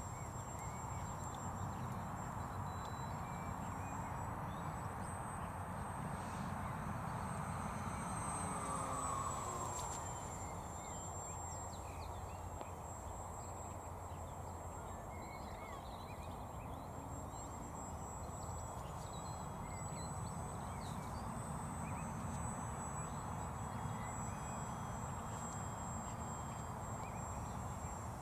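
Distant electric motor and propeller of a Durafly EFXtra RC plane in flight: a thin, high whine that rises slightly, then drops about ten seconds in as the plane turns and passes. Underneath runs a steady low background rush.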